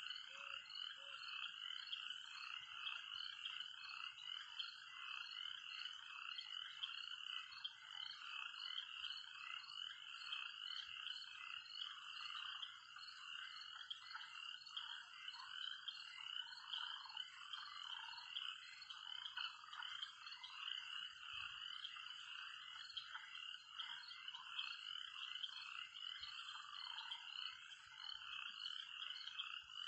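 A steady, dense chorus of calling animals, much like a frog chorus, running unchanged throughout.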